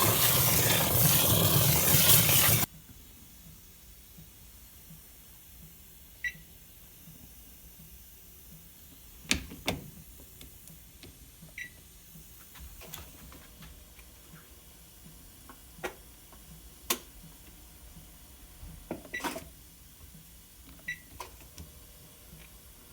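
A loud, steady running noise cuts off abruptly about two and a half seconds in, leaving a quiet room. After that come about four short high beeps, spaced a few seconds apart, and scattered sharp clicks. These fit a washing machine's control panel and its parts being handled.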